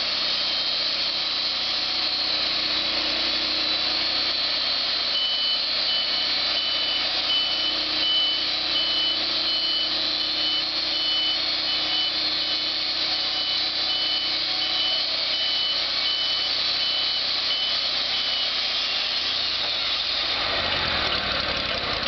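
Wood-Mizer portable band sawmill running, its engine-driven band blade sawing through a log with a steady loud mechanical noise. A high pulsing tone runs through the middle, and the sound changes about twenty seconds in.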